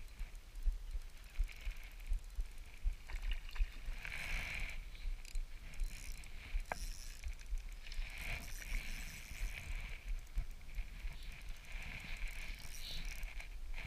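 Shimano Stradic spinning reel being cranked to retrieve a lure, its whirring coming and going in spells, over a constant low rumble.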